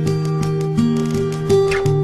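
Instrumental background music: held notes with new ones coming in every half second or so in a steady melody.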